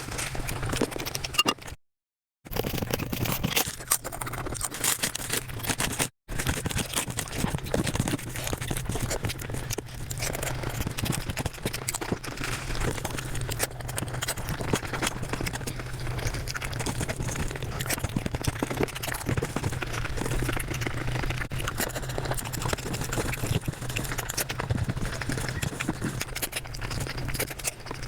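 Mukbang eating sounds played at five times speed: a dense, rapid run of chewing, smacking and small clicks, broken twice by a short silent gap within the first few seconds.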